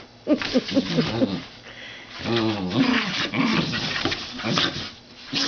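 Scottish terriers vocalising in play: a quick run of short yips in the first second, then longer growling sounds from about two seconds in.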